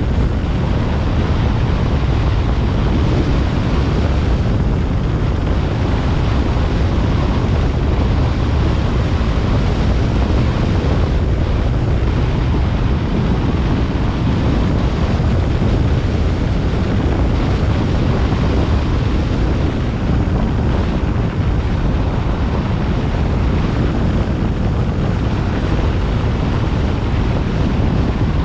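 Steady wind rush and road noise from a car driving along, with wind buffeting the microphone.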